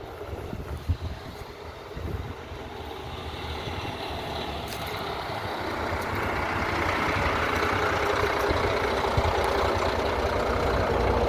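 V8 engine of a rat rod built from a 1930s pickup truck, running with a low rumble and growing steadily louder, with a steady hum rising into the sound near the end.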